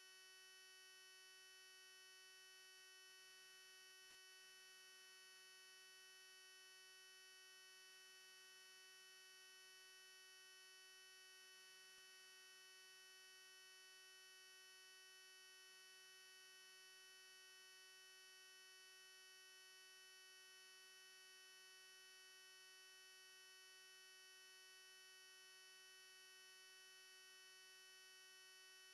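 Near silence: a faint, steady electrical hum, with a couple of faint ticks about three and four seconds in.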